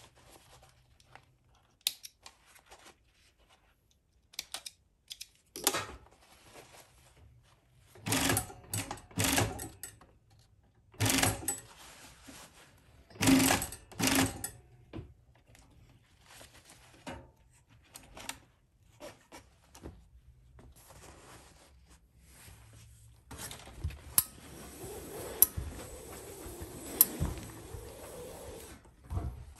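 Union Special chain stitch machine sewing a denim jeans hem in a few short runs of about a second each, with clicks and fabric handling between them. In the last several seconds a steam iron hisses steadily, with a few knocks, as the hem is pressed.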